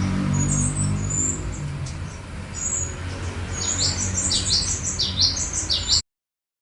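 Tledekan songbird singing: rapid high-pitched chirps and short downward-sweeping whistles, thinner in the middle and coming in quick clusters again in the last few seconds, over a steady low hum. The sound cuts off abruptly near the end.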